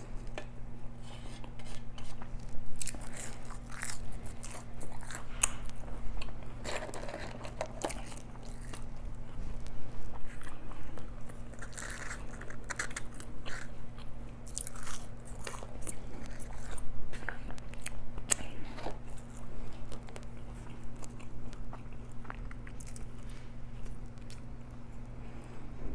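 A person chewing and biting food close to the microphone, with irregular small crunches and mouth clicks, over a steady low hum.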